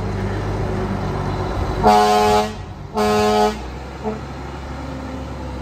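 Fire engine's air horn sounding two short blasts about a second apart, each about half a second long, with a brief faint toot after, over the truck's engine running as it drives past.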